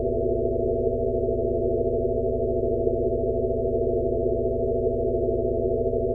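Synthesized sound-therapy drone of a tinnitus-relief frequency track: steady pure tones over a band of soft hiss and a rapidly pulsing low hum, all unchanging.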